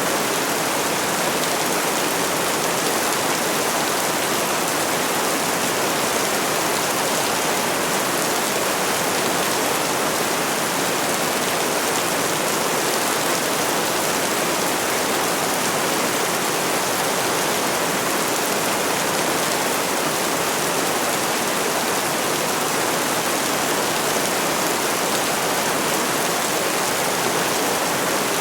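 Rain falling steadily: an even, unbroken hiss with no thunder or single drops standing out.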